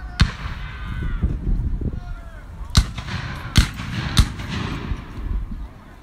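Black-powder musket shots, heard at a distance: four sharp cracks, one just after the start and three in quick succession about three to four seconds in, with people's voices between them.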